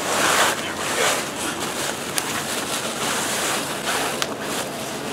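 Plastic protective wrapping and bubble wrap rustling and crinkling as a car grille is slid out of it, with a few sharper crackles.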